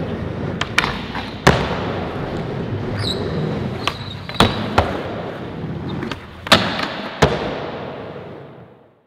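Skateboard wheels rolling over plywood ramps, broken by sharp clacks of the board popping and landing, the loudest about a second and a half, four and a half, six and a half and seven seconds in. A brief high scrape comes about three seconds in, and the sound fades out near the end.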